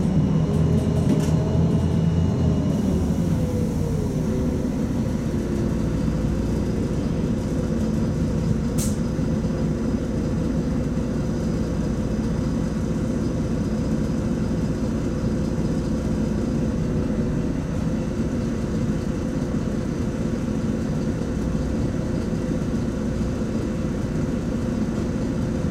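LiAZ-5292 city bus heard from inside the passenger cabin. A drivetrain whine falls in pitch over the first few seconds as the bus slows. The engine then drones steadily at idle while the bus stands in traffic, with one short high hiss about nine seconds in.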